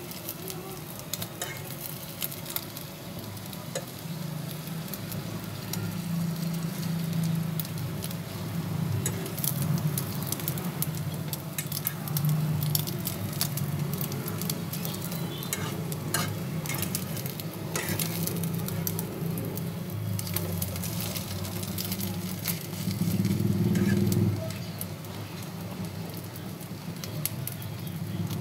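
Egg-coated bread sizzling as it fries in oil in a nonstick frying pan, with a metal spoon scraping and clicking against the pan as it is turned. A low rumble runs underneath and swells briefly near the end.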